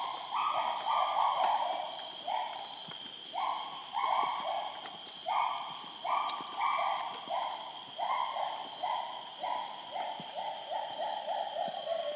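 North Bornean gibbon singing: a long series of loud hooting notes, each falling slightly in pitch, coming faster and shorter toward the end, over a steady high hum.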